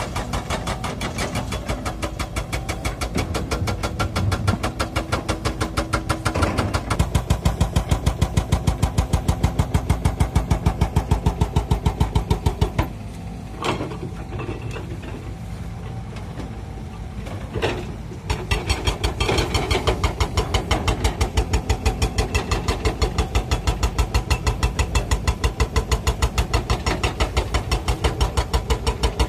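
Diesel engine of a Sumitomo SH130 hydraulic excavator running close by while it digs, a steady, evenly pulsing throb. The sound drops for a few seconds near the middle, then the same throb returns.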